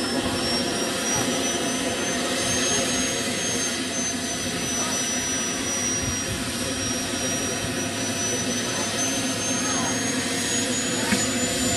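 Model jet turbine running: a steady rushing roar with a thin high whine that slowly climbs in pitch. There is one short tick near the end.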